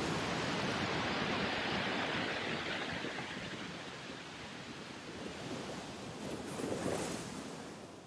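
Heavy storm surf breaking against a rocky seawall: a steady rush of white water that eases midway and swells again as a large wave breaks about seven seconds in.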